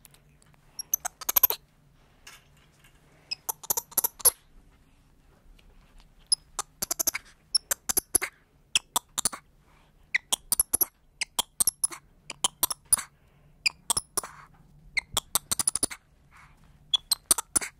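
Black-handed spider monkey giving repeated clusters of short, high-pitched squeaks, a burst every second or two.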